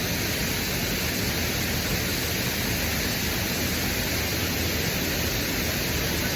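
Steady rushing of a waterfall, an even, unbroken wash of water noise.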